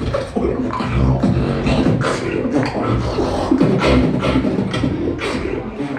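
A beatboxer performing a solo beat with the mouth: sharp snare-like hits about twice a second over a held low bass line, with shifting pitched vocal sounds in between.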